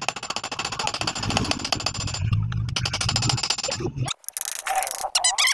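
Rapid, even hammer blows on steel as the rivets of a Yamaha Sniper 150 clutch housing are peened over against a hard metal block, re-riveting the housing and its damper. There is a short pause about two seconds in, and the hammering stops about four seconds in, followed by lighter metal handling sounds.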